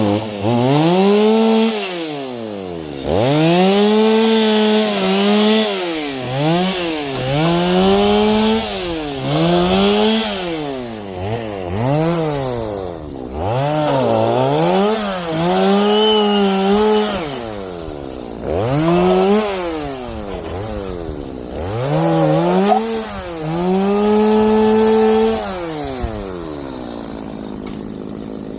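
Stihl two-stroke chainsaw cutting branches: the engine is repeatedly revved up and held at high speed for a second or two, then drops back toward idle, about a dozen times over, and eases to a lower idle near the end.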